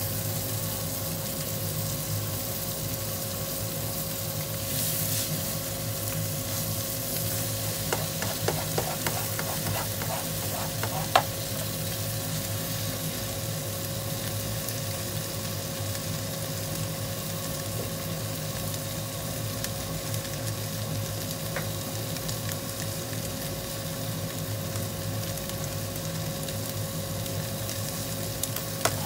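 Cabbage, komatsuna and egg sizzling in a non-stick frying pan while being stirred, a steady frying hiss over a faint steady hum. A few light clicks and knocks of the spatula against the pan come around 8 to 11 seconds in.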